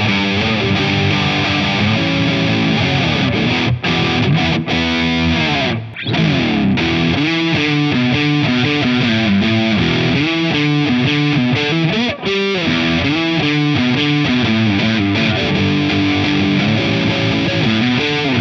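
Gusta GST-05 electric guitar played with overdrive: distorted chords and riffs. The notes slide downward in pitch just before a short break about six seconds in, and there are brief pauses near four and twelve seconds.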